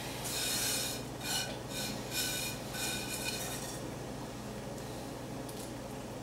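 A frying pan of breadcrumb stuffing being handled: about five short scraping, clinking sounds in the first three and a half seconds, then only a low steady hum.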